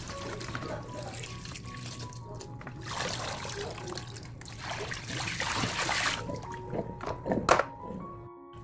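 Tap water running and splashing over lettuce leaves in a stainless mesh strainer as hands rinse and shake them, with a sharp knock near the end as the strainer is set down. Light background music plays under it.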